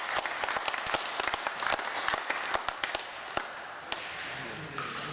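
Spectators clapping as a table tennis rally ends, dying away a little over three seconds in, with a few scattered claps after.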